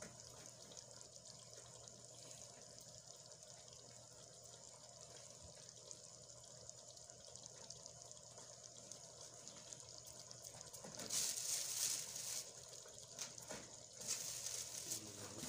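Chicken gravy simmering in an aluminium pot over a charcoal fire: a faint, steady bubbling crackle, with louder hissing about 11 seconds in and again near the end.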